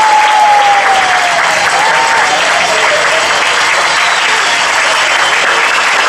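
An audience applauding steadily, with one long high cheer over the clapping that falls slowly in pitch during the first half.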